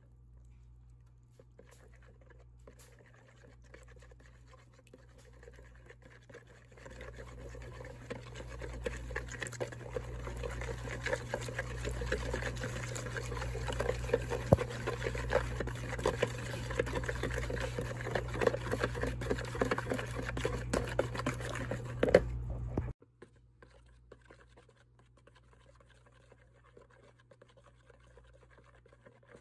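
Wire whisk beating a milk-and-cream mixture in a bowl: quick, dense clicking and scraping of the tines against the bowl with liquid sloshing. It starts faint, grows louder from about a quarter of the way in, and then cuts off abruptly. Only faint sound remains after that.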